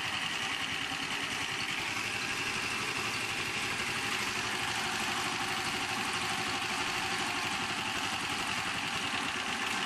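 Honda GX240 8 HP single-cylinder engine running steadily at a fast idle while being fed hydrogen-oxygen (HHO) gas from dry cells.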